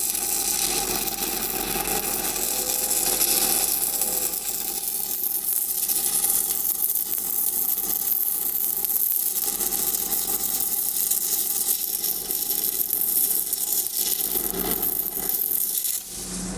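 Stick-welding arc crackling and sizzling steadily while a root pass is run downhill on a steel pipe. About a second before the end the arc is broken and the crackle cuts off suddenly.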